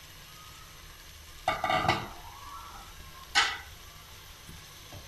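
Metal spoon stirring black chickpeas in a metal pot, scraping and clinking against the pot: a longer burst about a second and a half in and a short sharp one a little past the middle.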